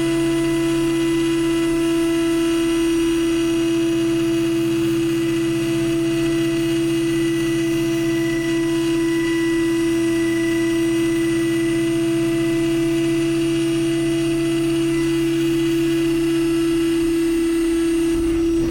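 CNC milling machine running a PCD face-milling insert across aluminium: a loud, steady tone with a hum beneath it.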